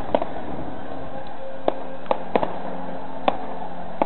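Aerial fireworks going off: irregular sharp pops and cracks, several close together at times, over a steady background din.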